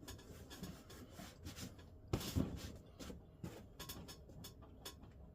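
Quiet scattered rubbing and handling noises with light clicks, and one louder knock about two seconds in.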